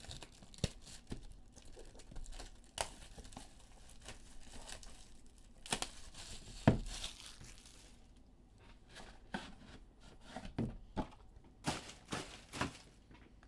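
Clear plastic shrink wrap being torn off a cardboard trading-card box and crumpled, crackling and crinkling in bursts, with a sharp knock about halfway through as the box is handled.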